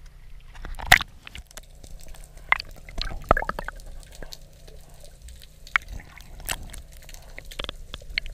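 A freediver going under: a splash about a second in as the camera plunges below the surface, then underwater sloshing, bubbly noises and scattered sharp clicks as the diver kicks down with fins.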